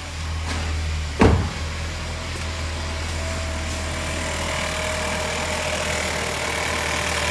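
Chevy Cruze engine catching with a sudden burst about a second in, then idling steadily. There is no metal rubbing noise now that the turbocharger has been replaced.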